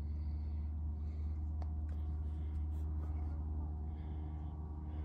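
Steady low machine hum, running evenly throughout, with a single faint click about one and a half seconds in.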